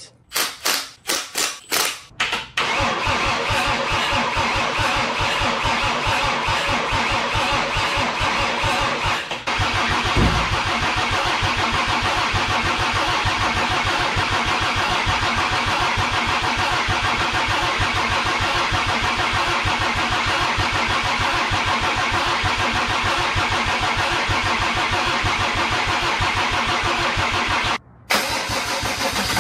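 Mercedes-Benz OM606 inline-six diesel turning over on its starter motor, cranking steadily at length without settling into a run, on the first start attempt of a freshly rebuilt engine. A few short separate noises come first, and the cranking pauses briefly about nine seconds in.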